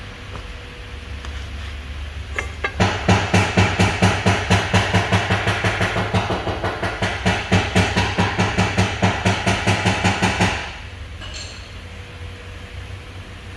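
Rapid, evenly repeated mechanical impacts, about four a second, from a workshop tool on the engine job, with a steady hum underneath; they start about three seconds in and stop abruptly after about eight seconds.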